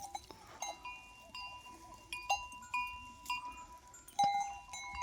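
Metal goat bells clinking irregularly, about a dozen separate strikes, each note ringing on briefly; one of the loudest comes about four seconds in.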